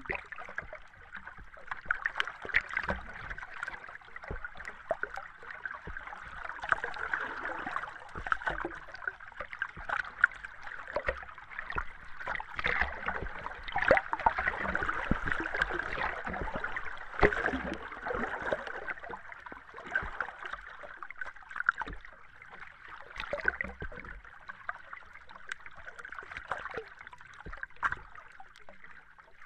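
Underwater ambience: a steady muffled wash of water with many short, irregular bubbling and gurgling pops.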